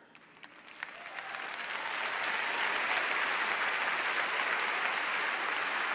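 Large audience applauding: a few scattered claps at first, swelling over about two seconds into steady, full applause.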